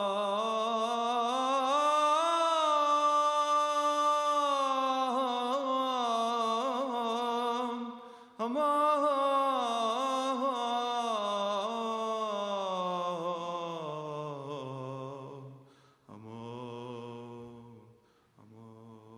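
A solo male voice singing a Syriac church hymn unaccompanied, in long drawn-out notes with wavering ornamented turns. After a quick breath about eight seconds in, the line sinks lower and quieter, ending in short low phrases with pauses between them.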